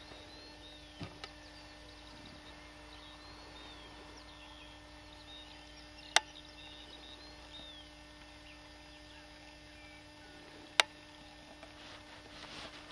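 Faint birdsong: many small birds chirping and warbling in short, quick phrases. Two sharp clicks, about six and eleven seconds in, are the loudest sounds.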